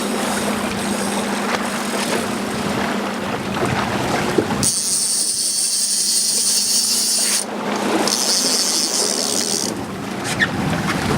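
Small boat's engine running steadily with wind and water noise. About halfway through it changes abruptly to a loud high-pitched hiss that cuts in and out a few times, with the engine hum gone.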